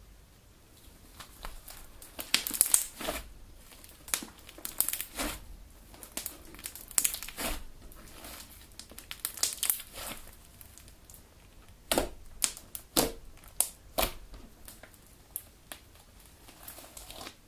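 Homemade Elmer's glue slime being kneaded and squeezed by hand, giving irregular crackling pops and squelches in clusters, with the sharpest pops about two thirds of the way through.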